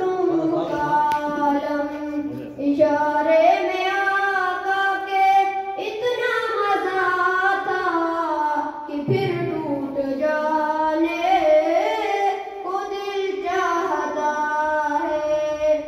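A boy's solo voice singing a naat unaccompanied, in long, held, gliding phrases with brief pauses for breath.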